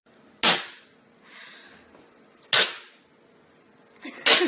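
Three sharp cracks or bangs, about two seconds apart, each dying away quickly.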